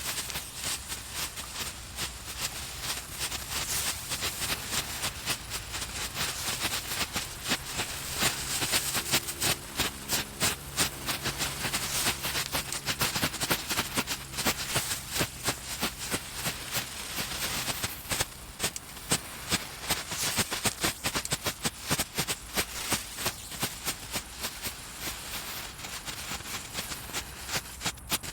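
Small Category 1 flash crackers ('flitsers') going off, a dense run of rapid sharp pops and crackles with louder single cracks scattered throughout.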